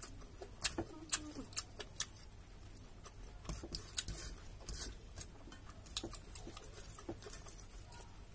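Eating sounds of rice and curry eaten by hand: a string of sharp, faint smacking clicks while chewing, four close together in the first two seconds, then scattered softer clicks as fingers mix rice on a steel plate.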